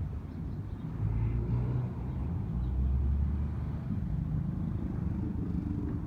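A vehicle's low, steady rumble with a low hum, swelling a little in the middle.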